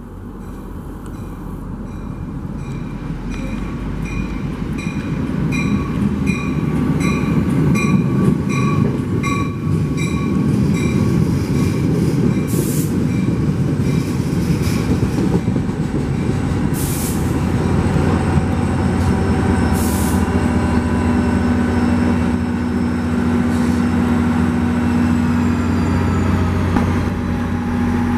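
New Jersey Transit commuter train arriving: a bell rings about twice a second for the first ten seconds while the Comet coaches rumble closer and past on the rails. Later, brakes squeal with slowly falling pitch as the train slows, a few short air hisses sound, and the steady hum of the GP40PH-2B diesel locomotive comes in near the end.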